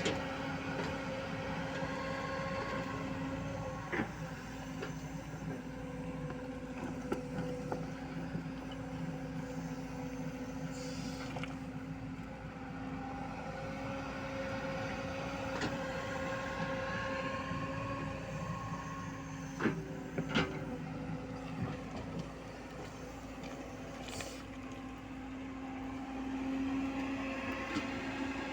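Diesel engine of a JCB 140 excavator running steadily while it works, with a few sharp knocks scattered through, two of them close together past the middle.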